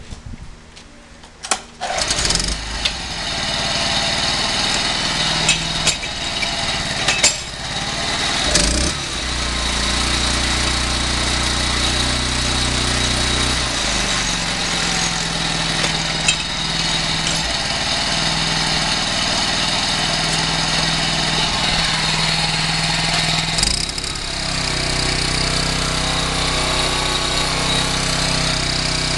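Small engine of a Kubota TMA300 mini tiller catching about two seconds in after a few sharp clicks, then running steadily, its pitch shifting a few times as it revs.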